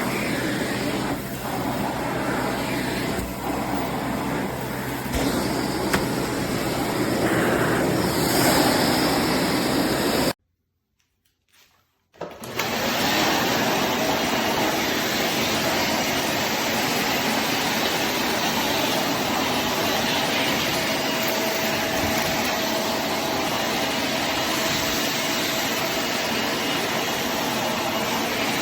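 Bissell Zing bagless canister vacuum cleaner running steadily, with a few light knocks in the first seconds. It cuts out for about two seconds around ten seconds in, then runs on evenly.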